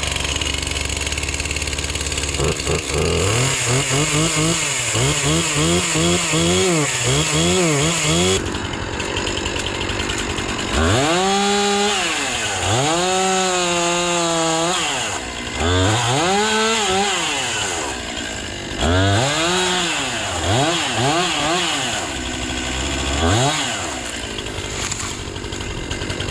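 A chainsaw idles briefly, then is revved up and down again and again while cutting wood. First come quick revs about twice a second, then longer full-throttle pulls that each rise and fall back.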